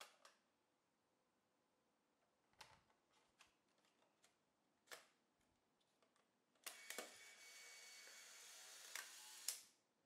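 A few light handling clicks from a Polaroid SX-70 Land Camera Model 1, then a click and its motor whirring steadily for about three seconds as it ejects the film pack's darkslide, stopping abruptly.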